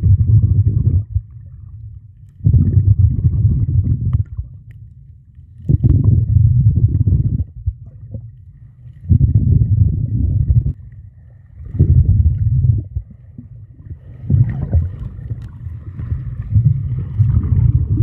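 Muffled underwater water noise picked up by a submerged camera: low rumbling surges that come regularly, about every three seconds, each lasting a second or two, with a faint hiss between them.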